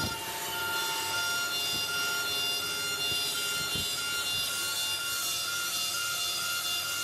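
CNC engraving machine cutting into a bronze lid: steady high tones from the spindle over the continuous scratchy hiss of the cutter working the metal.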